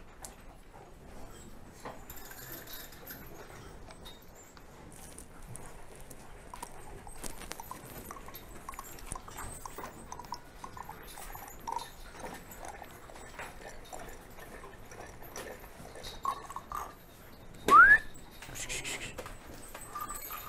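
Cattle and handling noises in a barn stall: faint knocks and rustles, with one short, loud rising whistle-like squeal near the end.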